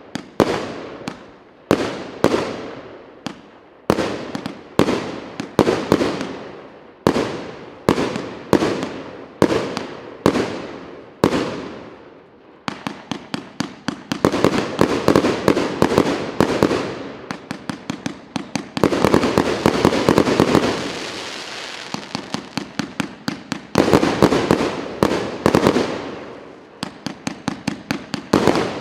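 A 200-shot, 1.2-inch fireworks cake firing. For about the first twelve seconds its shots come singly, roughly one a second, each dying away after it. From then on it fires rapid volleys of many shots a second, with short lulls between them.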